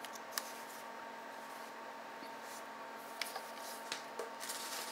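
Handling noise from an ELMO 8 mm film camera turned over in white cloth gloves: a few small clicks and knocks, then a short rustle near the end, over a steady background hiss.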